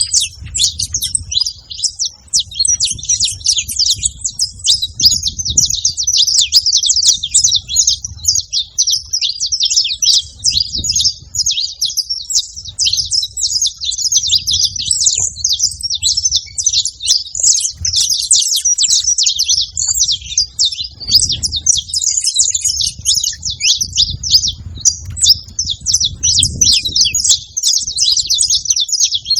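A flock of saffron finches chattering together, dense overlapping rapid high chirps without a break.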